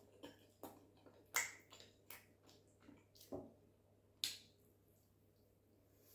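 Wet lip smacks and mouth clicks from eating a lump of swallow dipped in owo soup by hand: about eight short, sharp smacks over the first four and a half seconds, the loudest about a second and a half in, then quiet.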